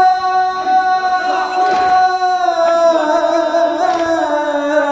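A male voice leading a Shia Muharram latmiya lament holds one long sung note, drawing out the last word of the line, and the note dips in pitch about three seconds in. A few dull thumps of chest-beating come in the first two seconds.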